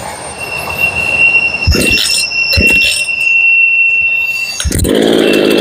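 Remington 46cc two-stroke chainsaw with its muffler baffles removed, running with a steady high whine and a few short low thumps. Near the end a lower, fuller engine note comes in.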